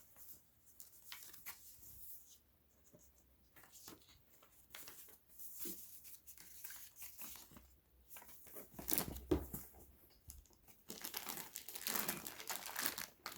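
Packaging being handled and torn open: scattered rustles and crinkles, turning into steadier crinkling near the end.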